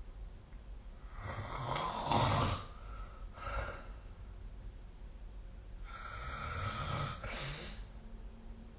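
A sleeping person snoring: two snores about four and a half seconds apart, each a long rasping breath followed by a shorter, softer one, the first snore the louder.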